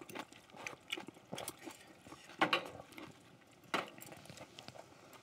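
Eating at a table: irregular light clicks and taps of chopsticks and spoons against dishes and the griddle, with a couple of sharper knocks partway through.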